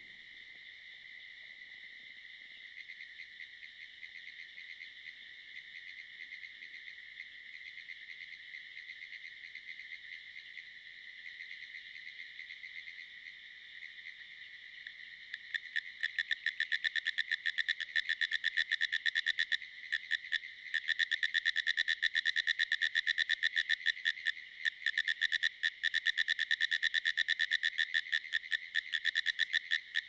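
Pine woods tree frogs calling: a steady, blended chorus at first, then from about halfway through a loud, rapid string of pulses from a nearer frog, in long runs with a couple of short pauses.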